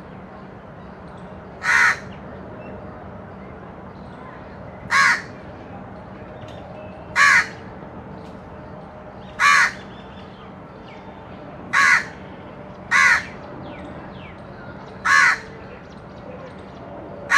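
Crow cawing: single short, harsh caws repeated about every two seconds, seven in all, over a faint steady hum.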